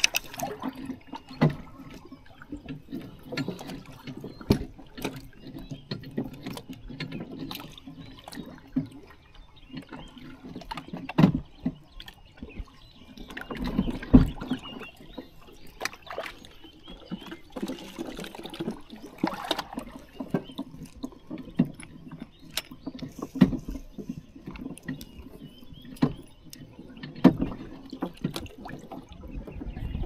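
Water sloshing and splashing, with irregular knocks and clunks scattered through.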